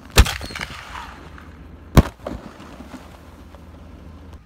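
Excalibur aerial shell fired from a reloadable mortar tube: a sharp bang as the lift charge launches it, then, about two seconds later, a slightly louder bang as the shell bursts in the air.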